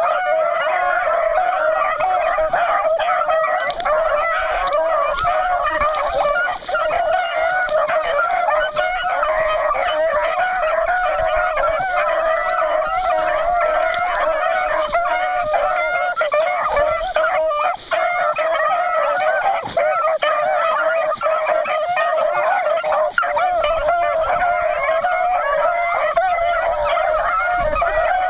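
A pack of beagles baying together, several overlapping voices in a continuous chorus with no pauses: the hounds in full cry on a rabbit's scent.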